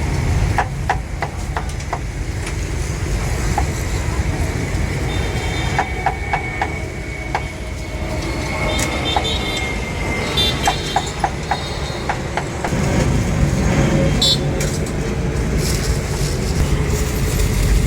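Busy street ambience: steady low traffic rumble with clusters of short, sharp knocks and faint voices. The rumble grows louder about two-thirds of the way through.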